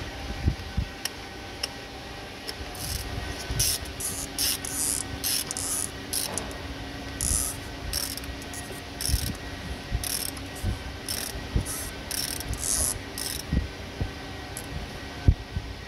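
Socket ratchet clicking in short bursts, about twenty strokes, as it is worked back and forth on an oil filter housing cap, tightening it down. The clicking stops near the end.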